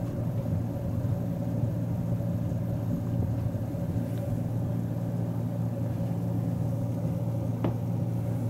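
Steady low hum and rumble of room background noise, unchanging throughout, with one faint click near the end.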